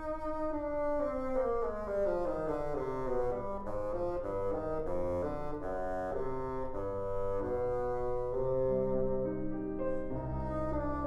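Bassoon and piano playing together: a held bassoon note, then a run of piano notes falling in pitch, settling into lower sustained bassoon tones over piano.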